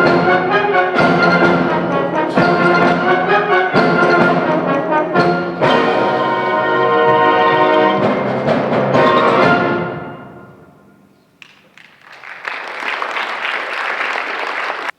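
High school symphonic concert band, brass to the fore, playing the closing bars of a piece; the final chord is cut off about ten seconds in and rings away in the hall. A couple of seconds later the audience applauds.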